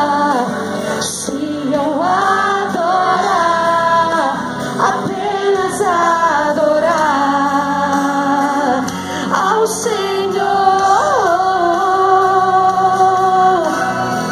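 A woman singing a slow worship song into a handheld microphone, holding long notes that bend and waver, amplified through the hall's speakers.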